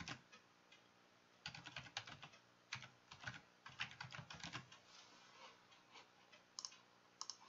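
Computer keyboard typing, faint: a quick run of key clicks for about three seconds, then a few single clicks near the end.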